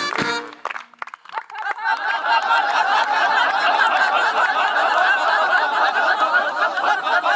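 Band music ends about half a second in, and about a second later many voices rise together in sustained cheering and whooping.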